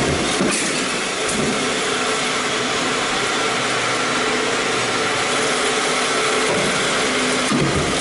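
Stamping press and shop machinery running steadily with the ram at rest, a constant mechanical drone. A few light clicks come through it, one about half a second in and a stronger one near the end.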